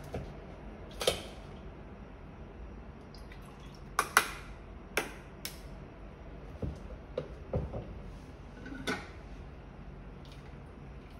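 Handling sounds from making an iced latte: sharp clicks and clinks from a milk carton and a glass of ice cubes on a counter, loudest about four seconds in, and milk poured over the ice in the middle.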